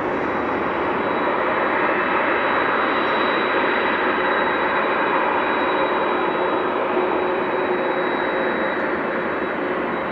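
Jet airliner's engines at takeoff power, a steady loud rushing noise with a thin high whine running through it.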